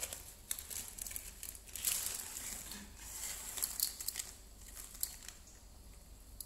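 Plastic Indomie instant-noodle packet crinkling and tearing in the hands as the noodle block is taken out, a crisp rustle in uneven bursts.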